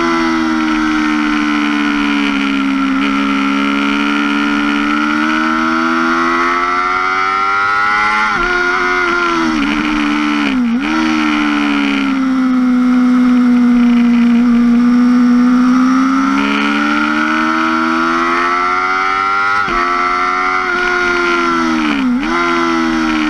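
2005 Yamaha R6's inline-four engine at high revs, heard from on board at track speed: the engine note falls off and climbs again as the bike slows and accelerates, with four gear changes marked by sudden drops in pitch, over a rush of wind.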